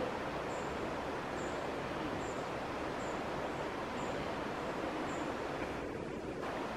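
Steady outdoor background noise with a faint high chirp repeating about once a second.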